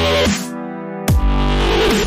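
Dubstep background music: a sharp hit with a falling sweep about a second in, each hit followed by a sustained deep bass note.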